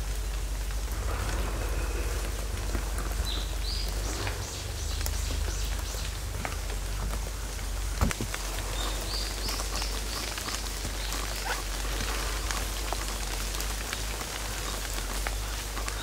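Steady rain falling on forest foliage, with many individual drops ticking close by. One sharper knock about halfway through stands out, and a few short high rising calls come through the rain.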